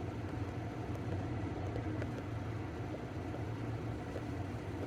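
Steady low hum, with a few faint light ticks from a pin-tumbler lock's core being turned back slightly.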